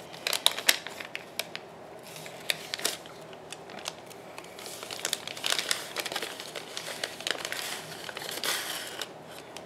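Paper crinkling and rustling in irregular bursts as a small kraft-paper gift bag with a sticker seal is handled and opened, with a few sharp crackles about half a second in.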